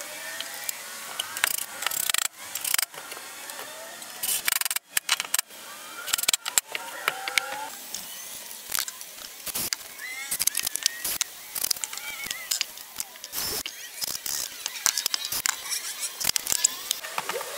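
Small metal hardware (hinges, screws and magnetic door catches) clinking and knocking against a wooden cabinet as it is handled and fitted: a run of irregular sharp clicks and taps.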